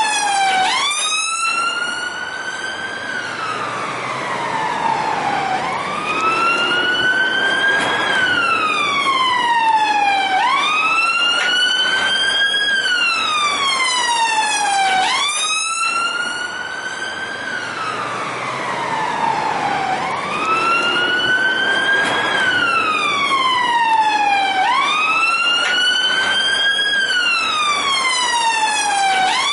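Police car siren in wail mode. Each cycle rises quickly in pitch, then falls slowly, repeating about every five seconds.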